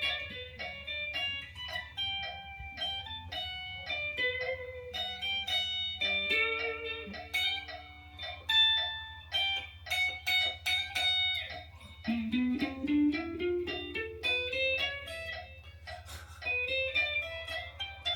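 Guitar played as a quick line of single picked notes, with a run that climbs in pitch about two-thirds of the way through, over a steady low hum.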